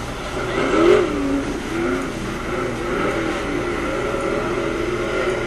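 Dirt late model race car's V8 engine revving up and easing off again and again as it laps, its pitch rising and falling every second or so.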